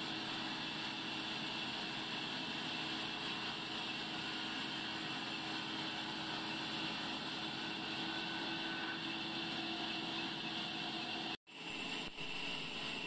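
Large sawmill band saw running steadily while sawing timber, an even machine whir. The sound cuts out for an instant a little past eleven seconds in, then carries on.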